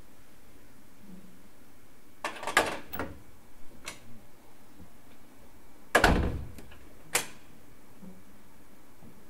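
Inside a stationary commuter train car: steady background noise broken by a few sharp knocks and clatters, a cluster a little over two seconds in and the loudest, a heavy thump, about six seconds in.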